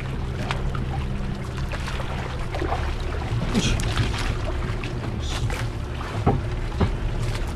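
Small fishing boat at sea: a steady low hum with water sloshing and splashing against the hull, and scattered knocks and clicks on board. Part of the hum stops a little over two seconds in.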